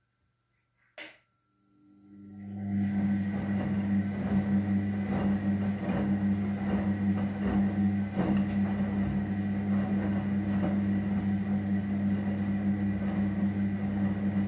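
Front-loading washing machine: a click about a second in, then the drum motor starts up and settles into a steady hum. The drum turns with suds and wet tea towels sloshing and knocking inside it during the main wash.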